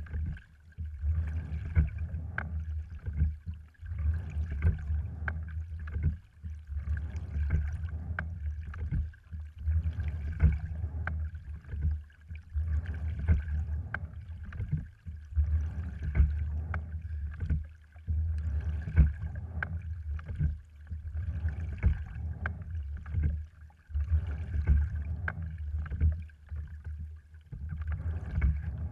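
Sliding-seat rowing wherry under way: oars knocking in the oarlocks and water washing along the hull, swelling and easing with each stroke about every three seconds, over a steady low rumble.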